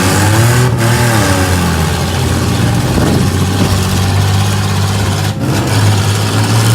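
Minivan engines revving, rising and falling in pitch twice, over a steady low engine drone and a constant noisy hiss.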